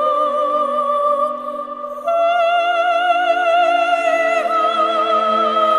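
Background music: operatic singing with long held, wavering notes over a steady instrumental accompaniment, the voice stepping up to a higher note about two seconds in.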